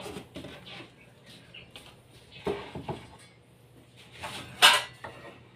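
Handling noise on a wooden cutting jig: knocks and scrapes as wood board pieces and a handheld circular saw are moved and set down, with the saw not running. A pair of knocks comes about two and a half seconds in, and the loudest, sharpest knock about four and a half seconds in.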